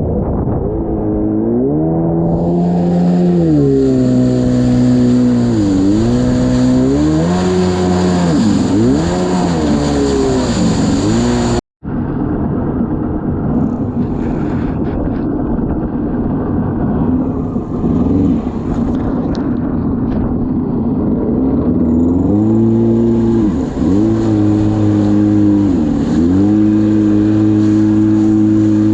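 Kawasaki 650SX stand-up jet ski's two-stroke twin engine running on the water, its pitch rising and falling repeatedly as the throttle is worked. The engine drops back under a rush of noise for several seconds, then revs up again and holds steady near the end.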